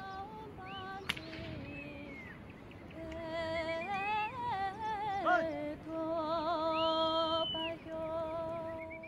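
A slow melody, sung or hummed by one voice, with long held notes and sliding pitches between them.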